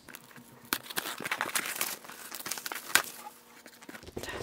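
Packaging crinkling and tearing as the dried-jujube snack is unwrapped: a run of quick crackles with one sharp snap about three seconds in.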